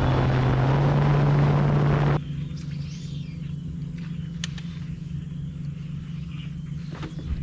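Bass boat's outboard motor running at speed, a steady low drone under loud rushing wind and water noise, rising slightly in pitch. About two seconds in it cuts off abruptly to a much quieter steady low hum.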